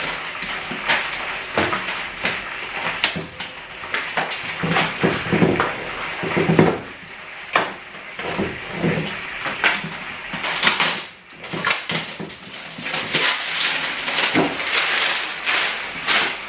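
Rustling and crinkling of paper and plastic packing as a new set of cooking pots is unwrapped, with many sharp clicks and knocks of the pots and their lids being handled.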